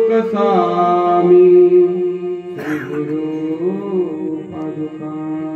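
A man singing a devotional kirtan chant, holding long notes that waver and bend in ornaments over a steady drone. A fresh phrase starts about two and a half seconds in.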